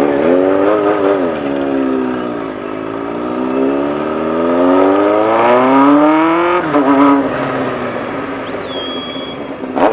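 Honda CBX 750's inline-four engine accelerating under way: its pitch climbs steadily for about four seconds, drops suddenly as at a gear change, then holds steady. A brief high thin tone sounds near the end.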